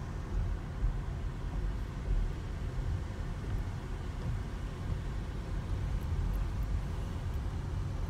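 Car driving slowly, heard from inside the cabin: a steady low rumble of engine and tyres on the road.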